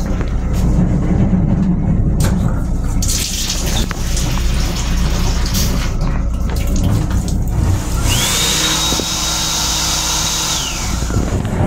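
Water from the sink faucet in a Metro-North M7 railcar restroom running into the basin, over the train's steady low rumble. The water noise sets in about three seconds in; near the end a high whine rises, holds steady for about two and a half seconds, then falls away.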